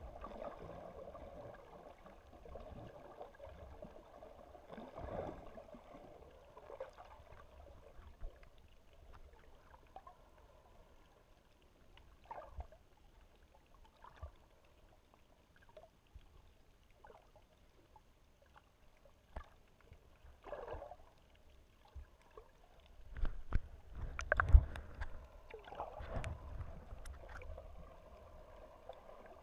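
Muffled underwater sound through a camera's waterproof housing: a low wash of moving water with scattered small knocks, growing louder for a few seconds past the middle with a cluster of knocks and low rumbling.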